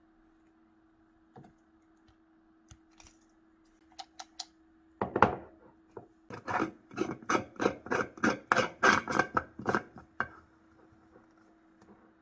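A quick, regular run of sharp knocks, about four a second, lasting some five seconds from near the middle, after a few scattered clicks, over a steady low hum.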